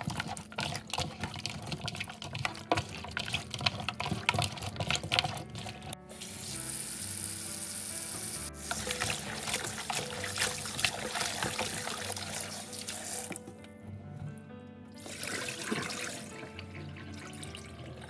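Tap water running and splashing into a bowl of raw chicken feet as they are rubbed and turned over by hand, with wet squelches and clatters from the feet. The water stops briefly and starts again near the end.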